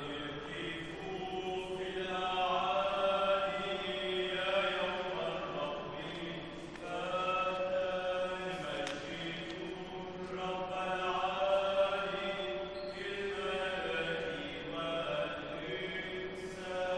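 Congregation singing a verse of an Arabic Maronite Sunday hymn together, in sustained phrases of a few seconds each.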